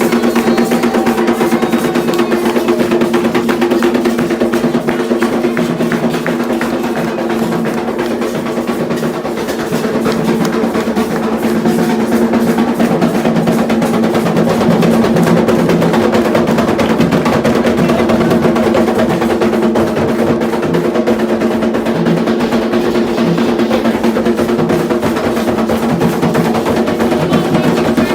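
Ceremonial hand drums, likely Candomblé atabaques, played in a fast, continuous rhythm, with steady held tones sounding underneath.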